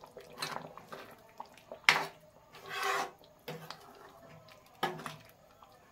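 A metal spoon stirring thick curry gravy in a metal pan, with about five short clinks and scrapes against the pan.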